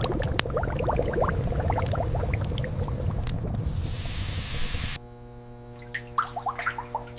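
Mustard oil dripping and trickling from a seed expeller over a low machine rumble. About five seconds in, the sound cuts abruptly to a quieter steady hum.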